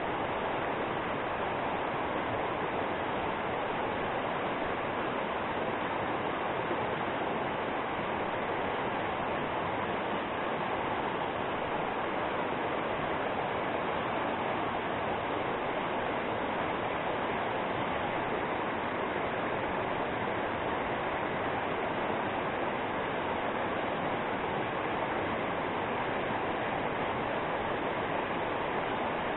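Mountain river rushing over rapids: a steady, unbroken rush of water.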